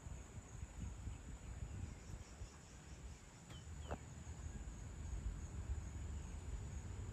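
Evening outdoor ambience: a thin, steady high insect drone over a low rumble, with a couple of brief chirps about halfway through.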